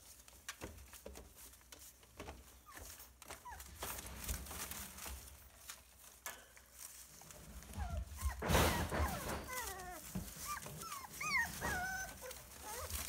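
Boxer puppies whimpering in short high squeaks, mostly in the second half, over scattered clicks and rustling from paws on newspaper bedding and the metal crate, with a louder rustle about two-thirds of the way in.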